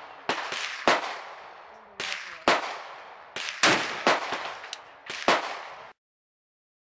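A string of about ten rifle shots from a Draco AK-47 pistol in 7.62×39, fired at an uneven, fairly quick pace, each shot ringing out afterwards. Some shots are louder than others. The sound cuts off abruptly about six seconds in.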